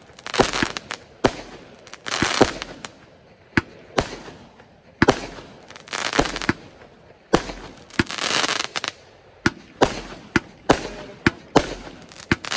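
Fireworks going off: a rapid string of sharp bangs, about one or two a second, several followed by a hiss lasting up to a second.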